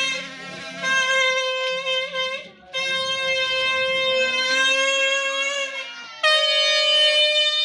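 Instrumental music: a reedy wind-instrument melody of long held notes, with brief breaks between phrases.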